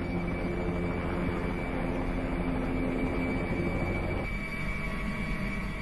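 Helicopter in flight: steady engine and rotor noise with a low hum, its tone changing about four seconds in.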